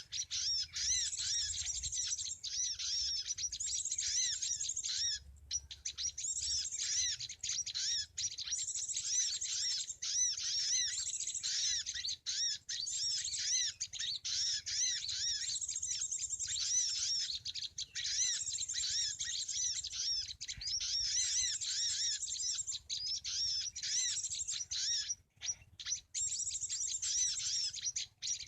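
Bar-winged prinias (ciblek) calling: a dense, continuous run of rapid, high chirps with a few brief breaks.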